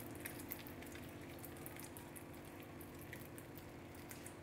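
Spoon spreading green chutney over a paratha: faint, scattered small wet clicks and soft scraping, over a faint steady hum.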